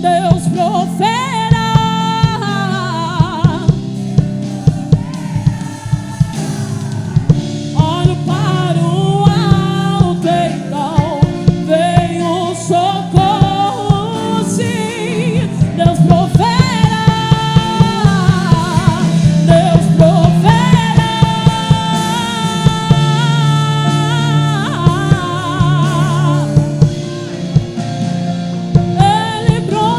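Live gospel worship music: a woman singing long, sliding melodic phrases over a band with a drum kit keeping a steady beat.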